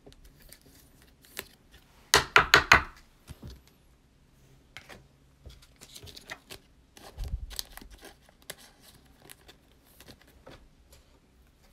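Handling noise of trading cards and a foil card-pack wrapper: a quick burst of loud crackles about two seconds in, then scattered crinkles and a second burst of crackling as a pack is torn open.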